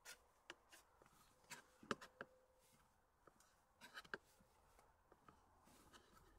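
Faint, scattered clicks and taps of a knife on a cutting board as raw bacon is sliced by hand, the loudest tap a little under two seconds in.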